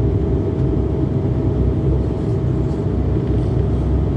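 Steady low rumble and hum inside a parked jet airliner's cabin, with the engines shut down.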